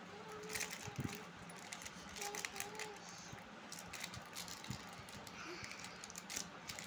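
Plastic wrapper of a strawberry cream wafer bar crinkling and tearing as it is opened by hand, a run of quick crackles.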